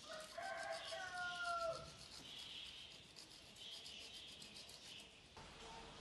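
A rooster crowing once, a single call of about two seconds with a drop in pitch at the end. Faint rubbing and rustling continue underneath.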